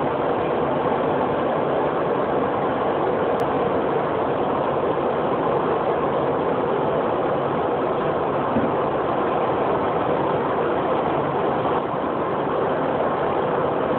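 KC-135R tanker's four CFM F108 turbofan engines running steadily at taxi power as the aircraft rolls along the taxiway, heard from inside the rear boom pod as an even, unbroken rushing drone.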